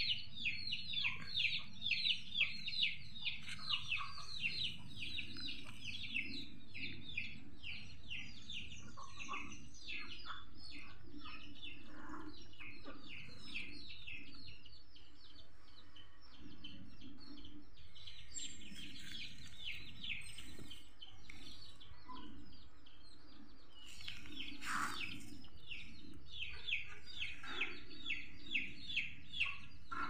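Chickens peeping: short, high, falling calls about three or four times a second, thinning out around the middle and coming back strong near the end.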